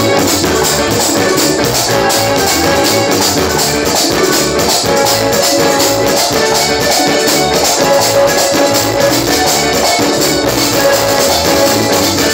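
A live band playing through a stage PA: acoustic guitars, keyboard and congas over a steady percussion beat.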